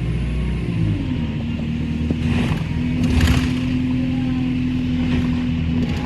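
Bus engine running, heard from on board. The engine note drops about a second in and then holds steady. Two brief hissing bursts come between about two and three and a half seconds in.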